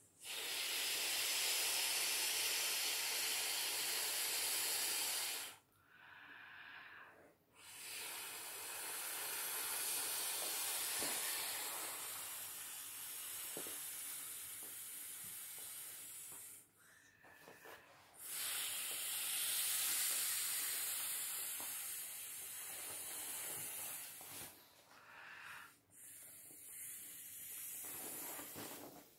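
Air blown by mouth into the valve of a vinyl inflatable swimming pool: four long breaths of rushing air, the second lasting about nine seconds, with short pauses between them to draw breath.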